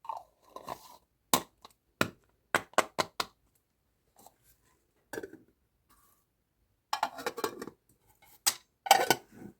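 Sweets and toy packaging being handled, making scattered sharp clicks and clinks: a run of single taps early, then a quick cluster of rattling clicks after about seven seconds.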